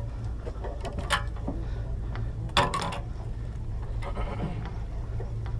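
Steady low hum of a sportfishing boat's engine, with two sharp knocks of gear against the boat about one and two and a half seconds in.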